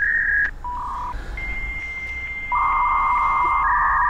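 Dial-up modem connecting, the AOL sign-on sound: short beeps, a steady high answer tone broken by regular clicks, then from about two and a half seconds in the loud hissing screech of the modems negotiating the line.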